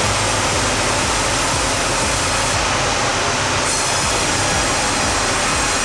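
Sawmill machinery running: a loud, steady, rushing noise from the saw and the log carriage, with no let-up.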